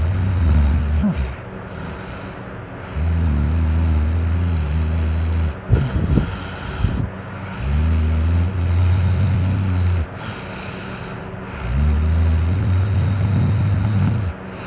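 A person snoring loudly after drinking alcohol: four long, low snores about every four seconds, with a few short snorts between the second and third. The steady whir of an electric fan runs underneath.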